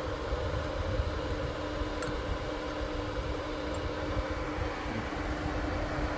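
A turbocharged car's engine running steadily, with a constant low rumble and one steady hum.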